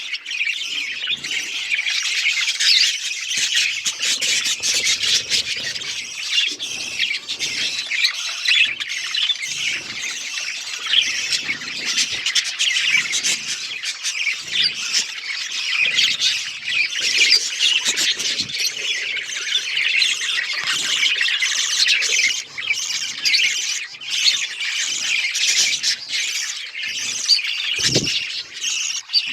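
Many budgerigars chirping and chattering, their quick, high calls overlapping without a break. A brief low thump sounds near the end.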